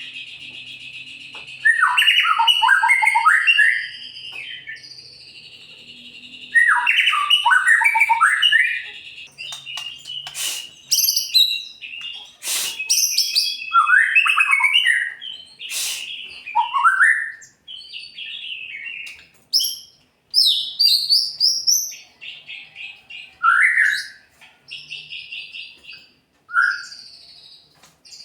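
White-rumped shama singing loudly and varied: bursts of rapid falling notes in phrases a few seconds long, broken by short pauses, then sharper single notes and calls. It is the fired-up, aggressive 'fighter' song that bird keepers play to provoke other shamas into singing.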